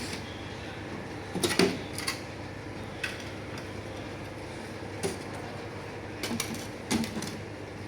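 Scattered knocks and clunks over a steady mechanical hum; the loudest is a double knock about a second and a half in, another comes near the end.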